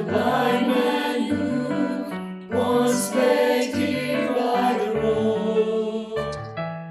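Church choir singing a slow Christian worship song over instrumental accompaniment with a moving bass line.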